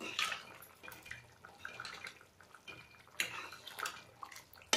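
Metal ladle stirring a thin, wet curry in a metal kadai: soft sloshing with scattered clinks and scrapes of the ladle against the pan, sharper ones near the start, about three seconds in and at the end.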